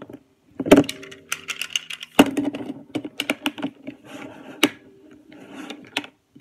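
Elmer's slime being squished and poked by hand in a plastic tub, giving rapid, irregular clicks and small pops. A few sharper knocks, about a second in, a little after two seconds and near the end, come from the plastic tub and its lid being handled.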